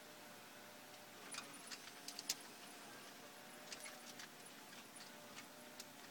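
Near silence: a faint steady hum with scattered light clicks and ticks, in two loose clusters.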